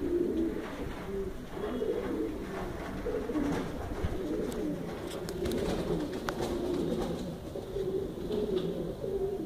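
English Carrier pigeons cooing: a continuous run of low, repeated coos, with a few short clicks about halfway through.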